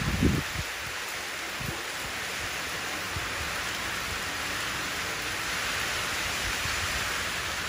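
Steady rain falling into a shallow puddle, a continuous even hiss of drops splashing on standing water. A couple of brief low thumps come right at the start.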